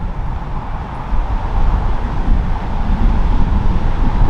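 Storm wind buffeting the microphone in a heavy low rumble that grows louder about a second in. Under it is the faint steady hum of a Boeing 737-800's jet engines on final approach.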